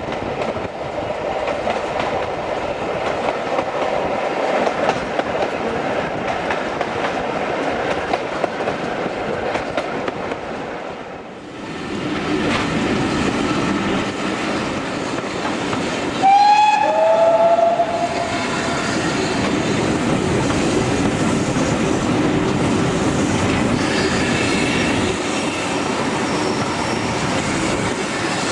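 Steam-hauled passenger train running along the line, heard from the carriage window; the running sound dips briefly about eleven seconds in. About two-thirds of the way through a steam locomotive whistle gives two short blasts, each falling slightly in pitch, the second lower than the first.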